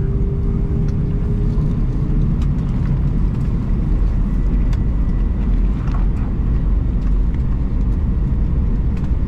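Steady cabin noise of an Airbus A319 taxiing after landing, heard from a window seat: a low rumble from the engines at idle and the wheels on the taxiway. A faint steady tone fades out about two seconds in.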